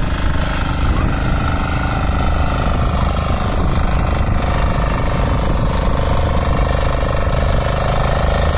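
Weima power weeder's single-cylinder diesel engine running steadily under load, driving its rear rotary tines through the soil, with a fast, even pulsing beat.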